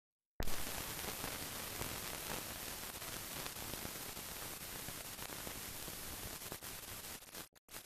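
Steady hiss and static of an old film soundtrack. It starts suddenly about half a second in and breaks up into short stuttering fragments near the end.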